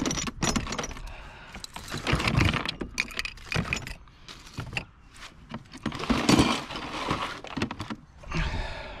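Loose steel trampoline springs jangling and clinking against each other in a plastic tub as they are handled and the tub is lifted and carried, in irregular rattling bursts.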